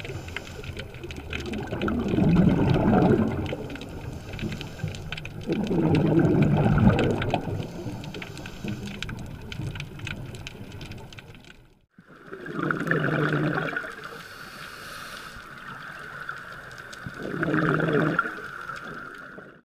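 Scuba diver's regulator breathing heard underwater: rumbling bursts of exhaled bubbles about every four seconds. The sound drops out at a cut near twelve seconds in, and after it a steady high hum runs beneath the bubble bursts.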